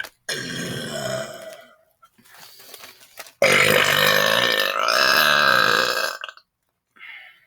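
A man's forced burps: a shorter one about a second long, then a longer, louder one of about three seconds.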